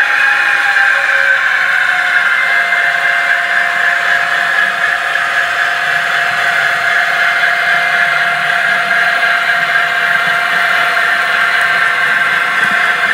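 H0-scale Piko BR 130 'Ludmilla' model diesel locomotive running with a steady engine-like drone and whine, which dips slightly in pitch about a second in and then holds level.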